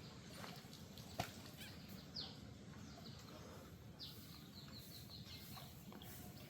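Faint bird calls: a single high down-slurred chirp about two seconds in, then a quick run of descending notes about four seconds in, over a low outdoor background rumble. A sharp click sounds just after a second.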